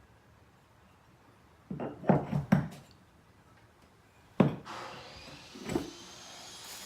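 Boat seat pedestal clunking as it is pushed into and worked out of its swivel-set base. There are several knocks in quick succession about two seconds in, then a sharp knock and a softer one a little later, followed by faint scraping. The partly ground-down lip still makes it click in and hold.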